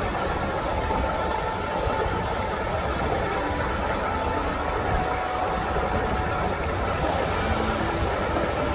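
Water rushing steadily over a small stepped stone weir, a continuous even rush with no breaks.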